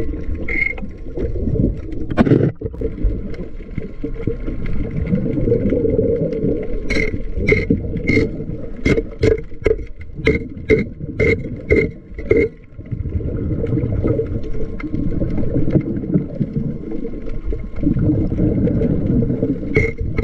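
Underwater sound of a diver scraping barnacles off a fishing boat's hull. A muffled low rumble of water and bubbling runs throughout. In the middle comes a run of sharp clicks, about two or three a second, as the metal scraper strikes the shells.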